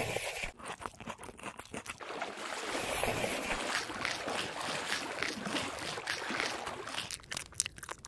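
Wet, watery foley: continuous sloshing and trickling peppered with many small clicks, thinning out to scattered clicks near the end.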